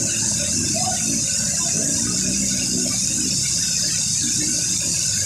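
Heavy rain pouring down together with fast-flowing floodwater rushing over the ground, a steady unbroken hiss.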